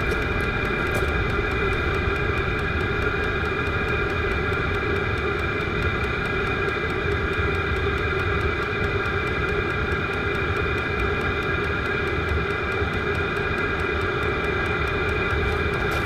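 Vevor diesel air heater running, its combustion and blower fan making a steady hum with a constant high-pitched whine.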